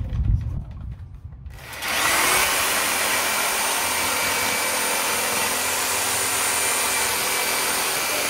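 Corded reciprocating saw cutting through a 6x6 wooden post. A few low handling knocks come first; then the saw starts a little under two seconds in and runs at a steady, even whine.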